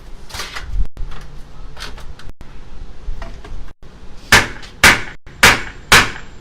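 Hammer blows knocking a tight-fitting replacement window into its frame opening: a few softer knocks and scrapes, then from about four seconds in four hard, ringing strikes, about two a second.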